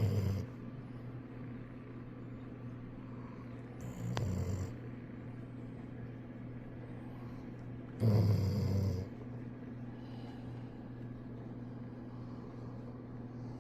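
A sleeping golden retriever snoring, three loud snores about four seconds apart.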